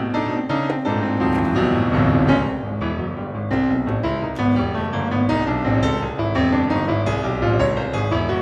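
Nuevo tango instrumental music with a prominent piano, many notes struck in quick succession over a sustained bass line, at a steady level.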